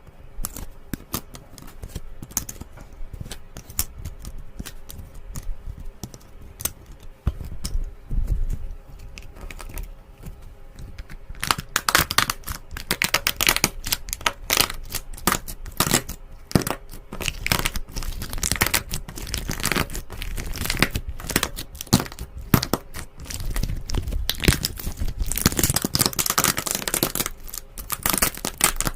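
Slime being squished and stretched by hand, making sticky crackling and popping clicks that grow louder and busier about a third of the way through.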